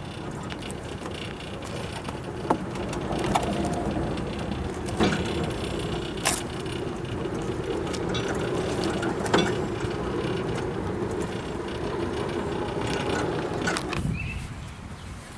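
Sharp metal clicks and clanks from a bandsaw sawmill being worked on during a blade change, over a steady mechanical hum that stops about fourteen seconds in.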